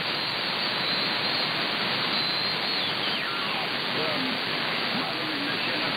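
Steady radio static hiss from an RTL-SDR receiver in upper-sideband mode on the 10-metre amateur band, with faint whistles gliding down in pitch as the tuning moves across signals, and faint garbled snatches of mistuned sideband voice.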